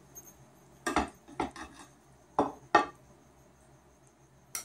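Metal serving spoon clinking against a ceramic baking dish and a plate while serving sauce: about six separate clinks, the strongest about a second in and two close together near the middle.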